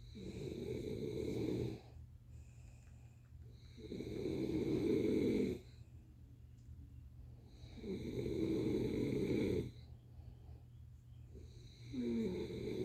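A person snoring in slow, regular breaths: a long snore about every four seconds, four in all.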